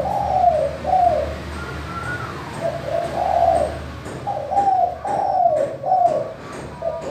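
Spotted dove (tekukur) singing its cooing song: several short phrases of arched coos, one after another with brief gaps between them.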